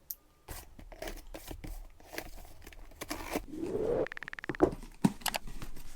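A shipping package being handled and opened: scattered taps, rustles and crinkles, with a short rapid rattling tear about four seconds in, like tape being pulled off.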